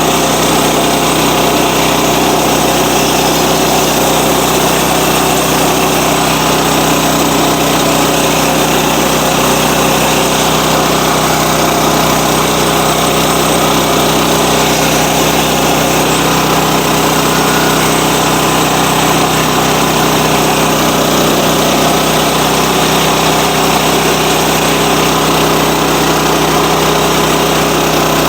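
Sawmill engine running steadily at an even pitch.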